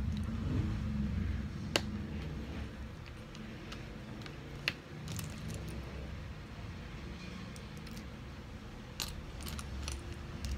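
Small plastic building bricks clicking and clattering as they are handled and sorted by hand, with scattered sharp clicks, the loudest about two seconds in and near five seconds, and a cluster near the end. A low steady hum runs underneath.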